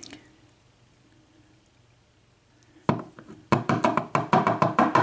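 One knock, then a quick run of about ten sharp taps: the metal lock cylinder being rapped against a hard surface to shake out a stuck wafer.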